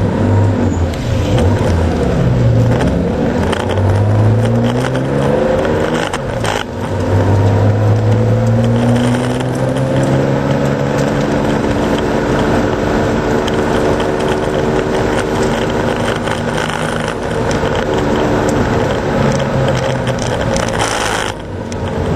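2.0-litre Porsche 911's air-cooled flat-six at racing load, its pitch climbing steadily through the revs. The sound breaks briefly at gear changes about six seconds in and near the end, over a steady hiss of spray and tyres on the soaked track.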